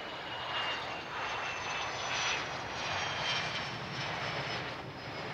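F/A-18C Hornet's twin General Electric F404 turbofan jet engines running as the fighter rolls out after landing: a swelling rush of jet noise with a thin high whine gently falling in pitch.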